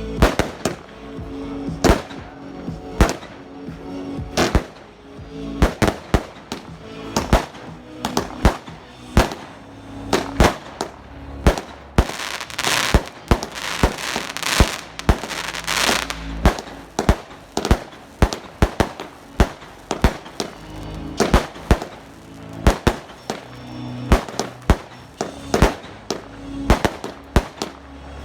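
Amateur fireworks going off in a rapid series of sharp bangs, about one or two a second, with a few seconds of continuous hissing noise about halfway through.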